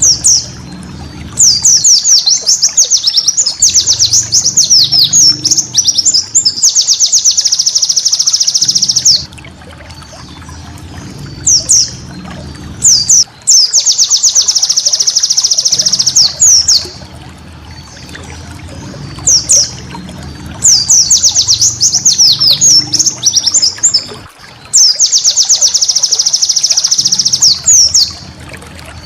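White-eye (pleci) singing in repeated loud bouts of high, quick sweeping notes that run into a dense, rapid trill. Each bout lasts a few seconds, with short pauses between. A low rushing sound like running water sits underneath.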